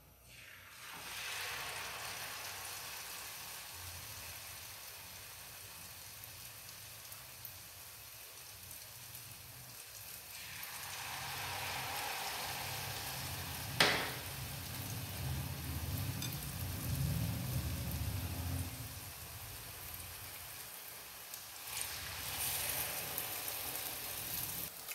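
Batter-coated nendran plantain slices frying in hot coconut oil in a pan: a steady sizzle that swells each time a fresh piece is lowered in. A single sharp tap comes about 14 seconds in.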